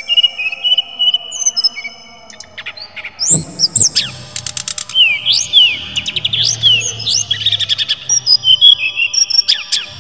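A caged jungle flycatcher of the kind hobbyists call SRDC (sikatan rimba dada coklat, brown-chested jungle flycatcher) singing. It gives clear whistled notes at first, then from about three seconds in a busier run of quick rising sweeps and ticks.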